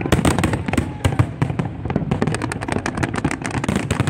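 Fireworks display: a dense, rapid string of launches and bursts, with bangs and crackles overlapping many times a second and no pause.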